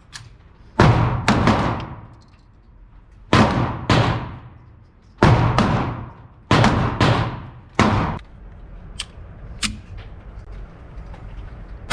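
Handgun shots, about nine loud ones, mostly in quick pairs about half a second apart, each with an echoing tail. Two fainter, sharper cracks come near the end.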